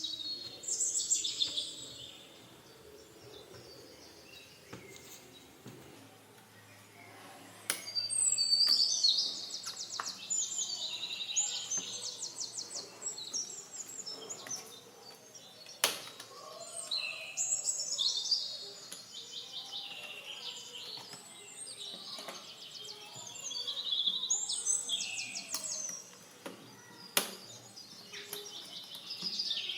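Songbirds singing in repeated high trilled phrases with pauses between them, and a few sharp clicks.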